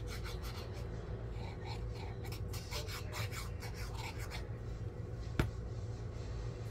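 Paper rubbed and scraped by hand in a quick run of short strokes, stopping after about four and a half seconds. A single sharp click follows about a second later, over a steady low hum.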